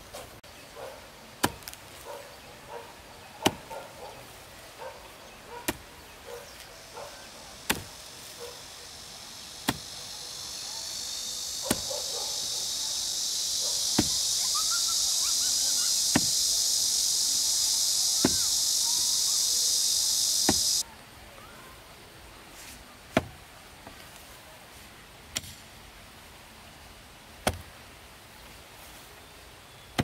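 Chopping strikes of a hand tool in a steady rhythm, about one blow every two seconds. A loud, high-pitched insect drone swells up about a third of the way in, holds, then stops suddenly near two-thirds through.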